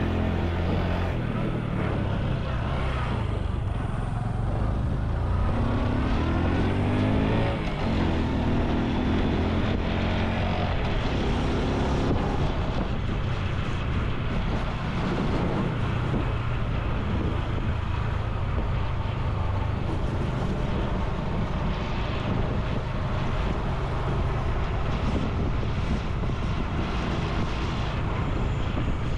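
Honda Super Cub C125's single-cylinder four-stroke engine running on the move, its pitch rising twice in the first eight seconds and then holding steady, over a constant rush of wind and road noise.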